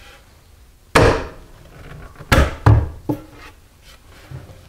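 A plywood cabinet door being hung on 35mm euro cup hinges: sharp clicks and wooden knocks as the hinge arms are snapped onto their mounting plates. There is one knock about a second in, then a quick pair and a lighter one about a second later.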